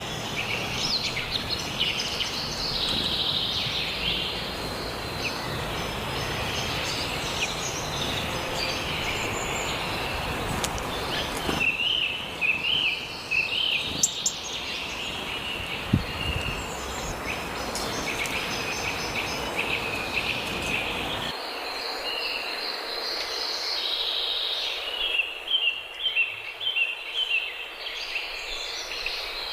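Cockatiel chirping in many short, quick calls over a steady low background rumble; the rumble stops about two-thirds of the way through, and the chirps come in louder clusters near the end.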